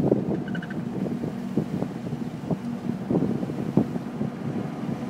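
Inside a car being driven at speed around a track: the engine runs steadily under tyre and wind noise, with short knocks and rattles scattered through.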